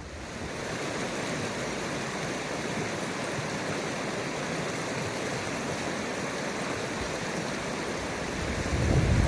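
Mountain stream water rushing steadily. A low rumble rises near the end.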